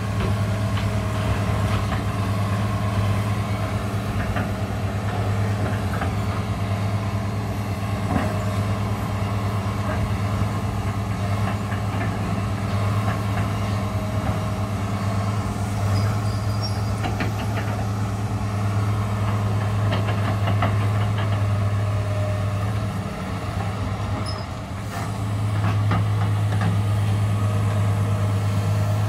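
New Holland E245 excavator's diesel engine running steadily as it works, with scattered light clatter of demolition rubble tipped into a truck. The engine note drops briefly about three-quarters of the way through.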